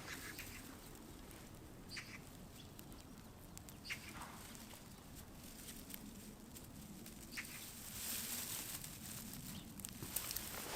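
Wood campfire crackling faintly, with scattered sharp pops, over a soft steady hiss. A few short bird chirps come in about two, four and seven seconds in.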